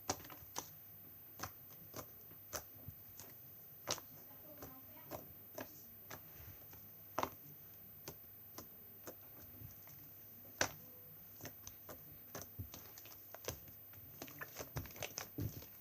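Homemade glossy slime being squeezed and poked by hand, giving irregular small clicks and pops, with a quick cluster near the end.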